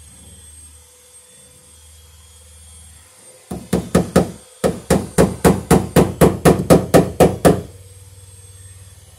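Hammer blows in a quick run of about twenty, four or five a second, with a brief pause after the first few, starting about three and a half seconds in.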